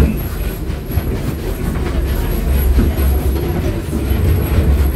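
Passenger car of a small steam-hauled tourist train rolling along the track, heard from aboard: a steady low rumble with irregular rattling.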